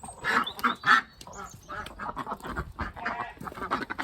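Several domestic ducks giving alarm quacks in a rapid series, loudest in the first second.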